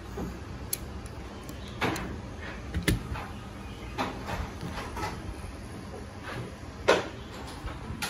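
A handful of scattered, irregular clicks and knocks from a Keychron K3 v2 low-profile mechanical keyboard being handled and pressed. The loudest click comes near the middle and another near the end.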